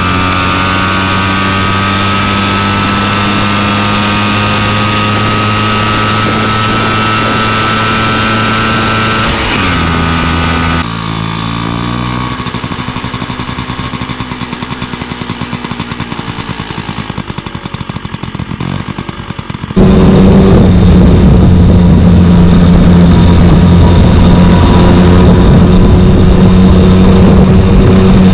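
Two-stroke 125 cc Vespa smallframe scooter engine running at a steady pitch, which falls about nine to eleven seconds in. A quieter, varying stretch follows, then the sound jumps suddenly to louder steady running about twenty seconds in.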